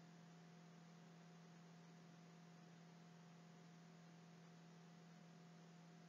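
Near silence: a faint steady hum with a low hiss underneath, unchanging throughout.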